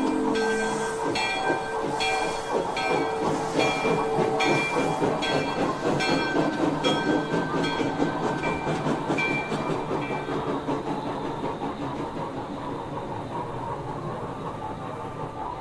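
Sound effects from a Broadway Limited model New York Central J-1e Hudson steam locomotive's onboard speaker: a steam whistle ends right at the start, then a bell rings about once every 0.8 s over hissing steam chuffing. The bell stops about two-thirds of the way through and the chuffing slowly fades.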